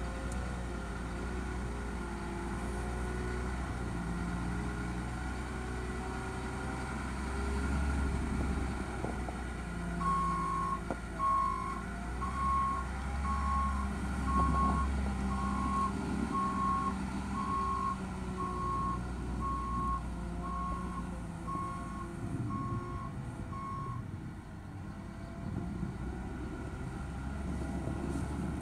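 Cat 926M wheel loader's C7.1 ACERT diesel engine running, its pitch rising and falling as the machine works. About a third of the way in, its reversing alarm starts beeping about once a second for some fifteen seconds as the loader backs up.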